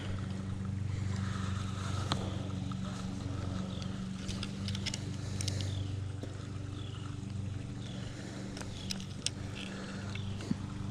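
A steady low engine hum from an unseen motor, with scattered small clicks and rustles as a bass is handled and unhooked from a handheld digital fish scale.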